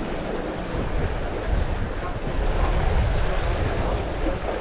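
Sea waves washing and breaking against the concrete blocks of a breakwater, swelling louder through the middle, with wind buffeting the microphone.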